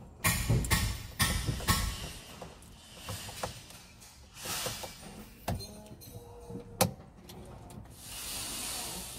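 Plastic wiring connectors and harness of a Mitsubishi Triton's ignition switch being handled and plugged in: a cluster of knocks and rattles in the first two seconds, then scattered clicks, one sharp click near seven seconds in, and soft rustling.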